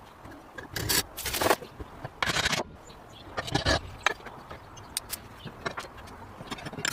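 Scraping on the old bread cutter during restoration work: about four short scraping strokes in the first four seconds, with scattered clicks and taps.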